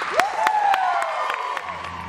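Children in a bucket band shouting and whooping together at the end of a piece, several long calls that leap up and slowly fall in pitch, with a few sharp drumstick clicks on plastic buckets.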